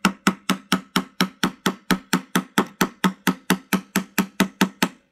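Wooden toy mallet knocking a plastic peg down through the wooden board of a children's hammer bench. Rapid, even blows, about four to five a second, each ringing briefly, stopping near the end.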